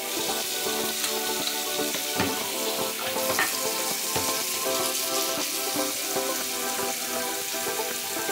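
Tap water running into a sink while paint brushes are rinsed and scrubbed under the stream, a steady hiss, with background music.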